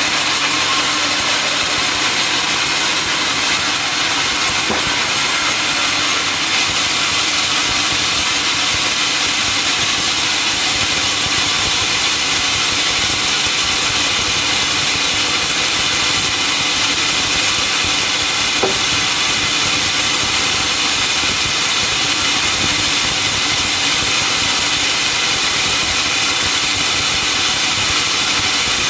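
Sawmill saw running steadily through a teak log, a loud, unchanging machine noise.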